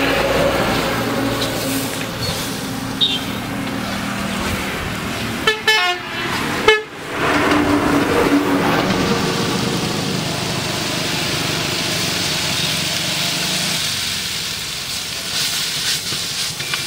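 Dry chicken masala sizzling in an iron wok as it is stirred with a ladle, over a vehicle engine running. A vehicle horn sounds briefly in quick pulses about six seconds in.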